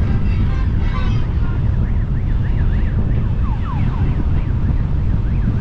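A warbling siren, its pitch sweeping quickly up and down a few times a second, starts about two seconds in. Under it is the steady rumble of wind and engine from riding on a small motorcycle.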